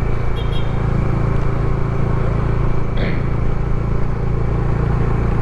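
A motorcycle engine running steadily under way, with wind rush, heard through a lavalier mic tucked in the helmet's chin curtain.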